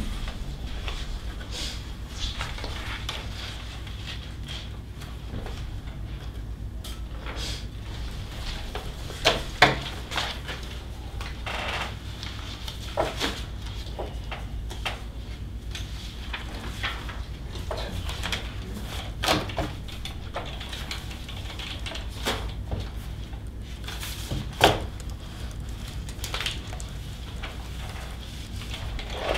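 Paper handling: sheets rustling and pages being turned, with scattered sharp taps and clicks, the loudest four coming a few seconds apart, over a steady low room hum.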